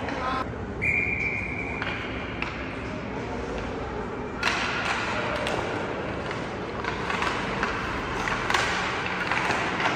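Ice hockey play in a rink: sharp knocks of sticks and puck over the arena's steady noise, coming thickly from about halfway through. About a second in, a brief steady high tone sounds.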